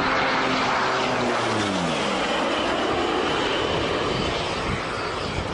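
Lockheed P-3 Orion's four Allison T56 turboprop engines and propellers in a low flypast: a loud roar with a propeller hum whose pitch slides down between about half a second and two seconds in as the aircraft passes and moves away.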